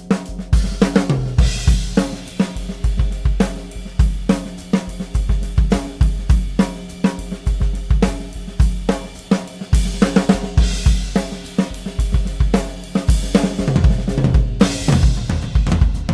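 Jenkins-Martin Blaemire Series drum kit played in a busy groove: fast bass drum, snare and hi-hat strokes, with cymbal crashes ringing out a few times.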